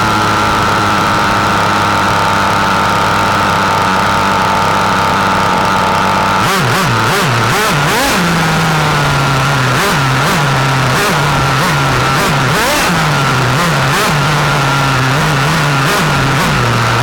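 Nitro engine of a 1/8-scale Longo RC racing car, heard close up from on board, running at a steady high pitch. About a third of the way in it starts revving up and down again and again as the throttle is lifted and reopened, with sharp clicks and knocks over it.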